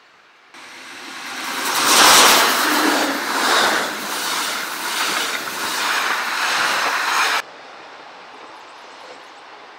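Passenger train coaches passing close by: a loud rush of wheel and rail noise with rhythmic clicking, about two clicks a second, as the wheels cross the rail joints. It starts abruptly about half a second in and cuts off abruptly about seven seconds in.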